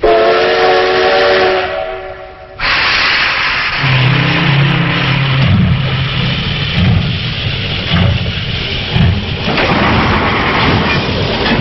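Steam locomotive whistle blowing a chord, cut off after about two and a half seconds by a long, loud hiss of escaping steam; low tones join under the hiss about four seconds in.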